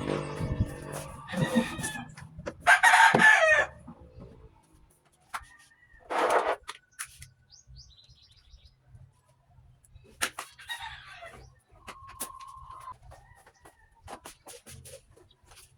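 Bird calls: a loud, pitched call about three seconds in, another near six seconds and a fainter one near eleven seconds, with scattered clicks between them.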